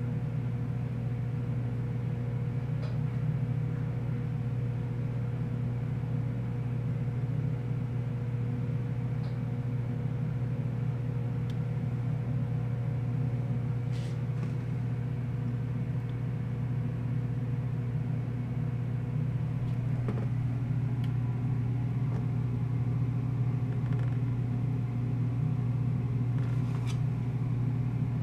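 Steady low hum of room or building background noise, with a faint higher tone that fades out about two-thirds of the way through and a few faint scattered clicks.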